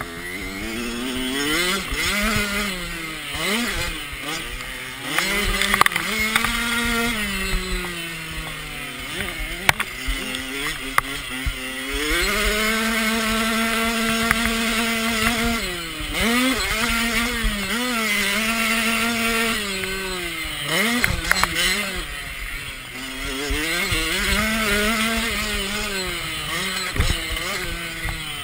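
65cc two-stroke motocross bike's engine revving hard, its pitch climbing and dropping again and again through the gears, held steady at high revs for a few seconds in the middle, with wind noise and a few sharp knocks from the track.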